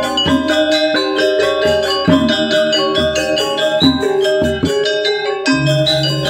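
Balinese gamelan music: bronze metallophones striking quick, ringing runs of notes over lower sustained tones.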